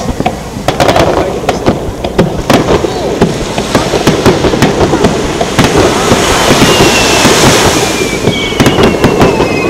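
Aerial fireworks display: shells bursting overhead in a rapid, uneven string of sharp bangs and crackles. In the second half a thin high tone glides slowly downward.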